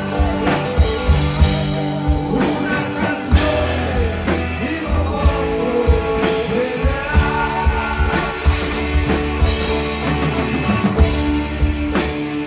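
Live rock band playing loud through a PA: electric guitars over a drum kit keeping a steady beat.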